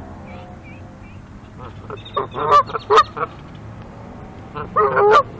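Canada goose honking: a run of loud honks about two seconds in, and another burst near the end.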